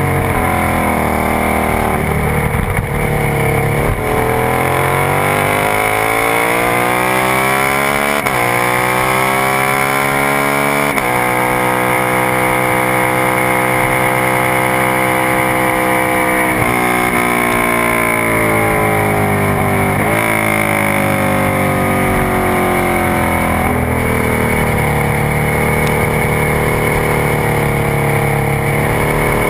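Onboard sound of a sport motorcycle engine at full lap pace: it revs up through the gears with an upshift about eight seconds in, then holds high revs down a straight. About halfway through it drops sharply as the rider closes the throttle and downshifts into the braking zone, then it picks up again out of the corner. Wind rush on the microphone runs under the engine throughout.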